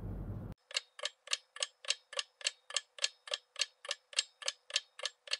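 Clock ticking at an even pace, about three and a half ticks a second, starting about half a second in.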